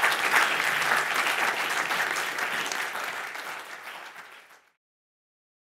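Audience applauding, a dense patter of many hands clapping that slowly dies down and cuts off about four and a half seconds in.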